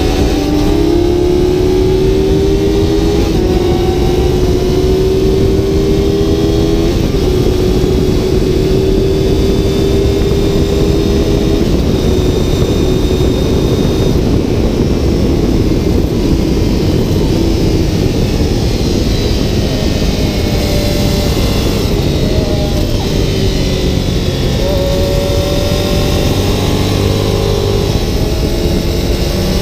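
2015 Aprilia Dorsoduro 750's V-twin engine at track speed, its note climbing through the gears with a shift or two, easing off in the middle, then pulling again near the end. Heavy wind rush on the microphone throughout.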